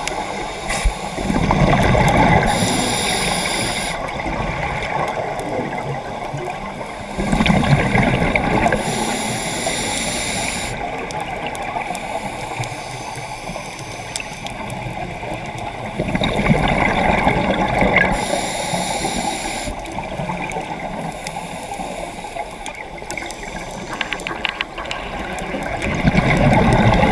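Scuba diver breathing through a regulator underwater: a burst of exhaled bubbles rumbling and gurgling about every nine seconds, with a short high hiss following most of them.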